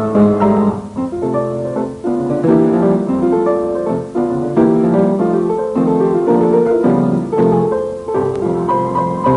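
Background piano music, a brisk run of notes.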